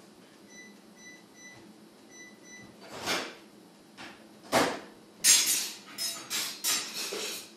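Mobile phone keypad beeping as buttons are pressed: six short, faint, identical beeps in quick succession. They are followed by several louder, short rushing noise bursts, the last few close together, which are the loudest sounds.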